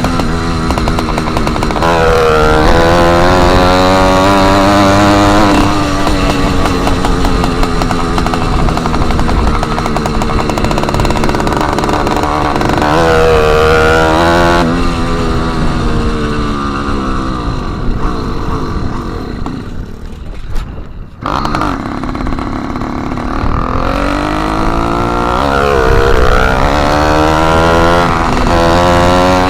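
Motorized bicycle's small kit engine running with no exhaust tip, loud and raspy, its pitch rising and falling repeatedly as the throttle is opened and eased. Near the end of its second third the engine winds down and fades, then comes back in abruptly at full volume.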